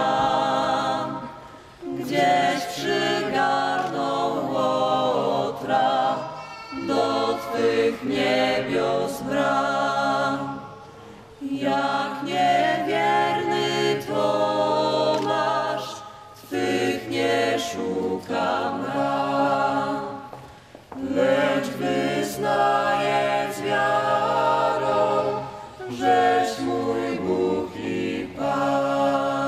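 Small mixed vocal ensemble of men's and women's voices singing a cappella in several parts, in long phrases separated by brief pauses for breath.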